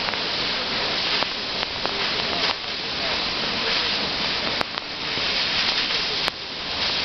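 A waterfall's falling water rushing steadily, with a couple of brief clicks near the end.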